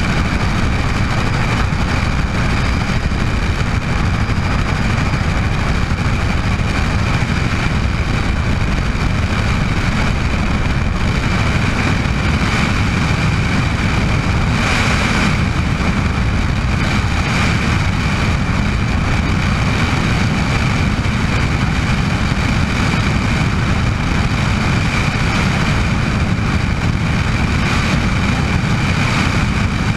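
Bell 206 JetRanger helicopter running in flight: a steady low drone from the rotor and Allison 250 turboshaft engine, with a constant high turbine whine over it.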